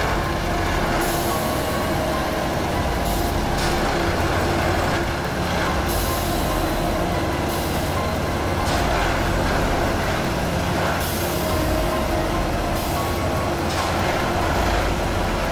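Plasser & Theurer 08-16 multi-tie tamping machine working on ballast track: its engine and hydraulics run steadily, with hissing air releases a second or so long recurring every few seconds as the tamping unit works.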